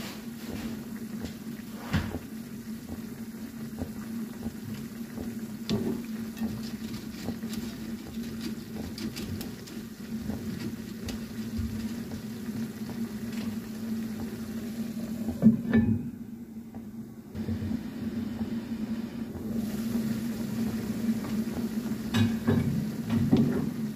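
Broth simmering and bubbling in a nonstick frying pan under a layer of dry pancit canton noodles, with a steady low hum beneath. A wooden spatula knocks and scrapes against the pan now and then, and a pan lid clatters near the end.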